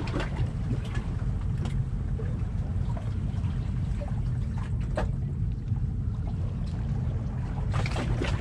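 Steady low rumble of wind on the microphone, with a few faint clicks.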